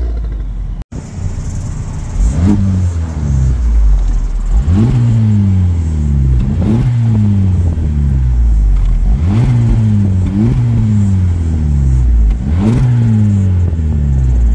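A string of Honda Civic Type Rs with turbocharged 2.0-litre four-cylinder engines driving past one after another, about six in all, roughly every two seconds. Each pass comes with a quick swoosh, and then the engine note drops in pitch as the car goes by.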